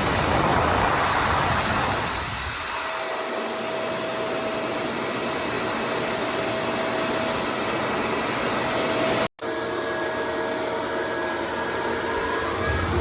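Upright vacuum cleaner running steadily, a rushing hum with a thin steady whine. The sound cuts out for an instant about nine seconds in and resumes with a slightly different tone.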